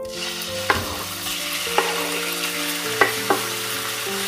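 Raw beef chunks tipped from a wooden board into hot oil in a nonstick frying pan, setting off a steady sizzle, with four sharp knocks as the pieces go in.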